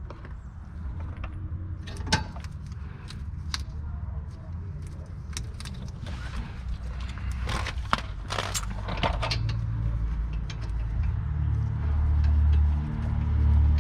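Irregular metallic clinks and clicks of hand tools and brake parts being handled during work on a car's rear brakes, over a low rumble that grows louder near the end.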